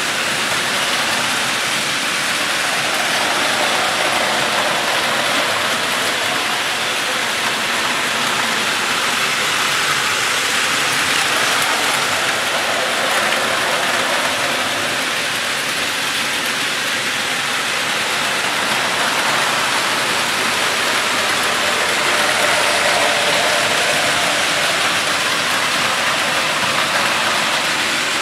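Several battery-powered Plarail toy trains running together on blue plastic track: the steady, dense mechanical noise of their small motors, gears and wheels.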